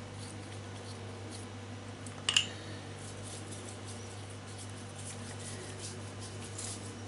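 Pastry brush dabbing beaten egg onto raw pasties on a parchment-lined baking tray: faint soft scratching and light ticks of the bristles on pastry and paper. One sharp click about two seconds in, with a steady low hum under it all.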